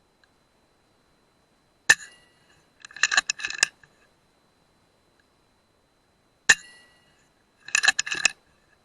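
Two shots from a .177 FX Dreamline pre-charged air rifle, about four and a half seconds apart. Each is a sharp crack with a short ring. About a second after each shot comes a quick run of metallic clicks and clinks.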